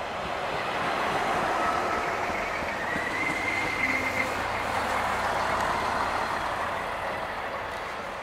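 DB class 642 Siemens Desiro diesel multiple unit passing close by: engine and wheels on rail rising to a peak and then fading as it pulls away, with a brief high steady tone about three seconds in.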